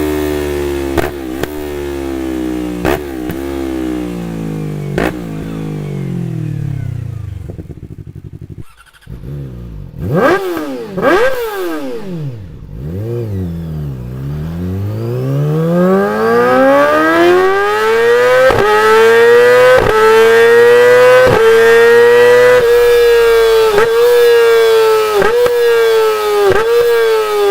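Yamaha YZF-R sportbike with an Akrapovic full-system exhaust under way: the engine note falls through a series of quick shifts, then sweeps up and down and climbs to a high, loud pitch held through several rapid gear changes.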